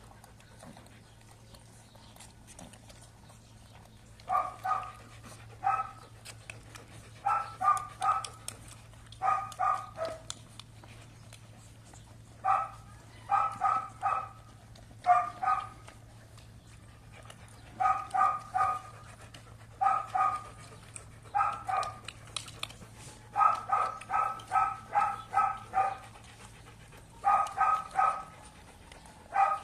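A dog barking again and again in quick runs of two to six high barks, starting about four seconds in, with short pauses between the runs.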